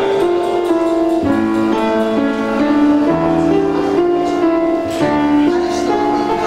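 Yamaha upright piano played live: a melody over chords, with the notes changing every half second or so.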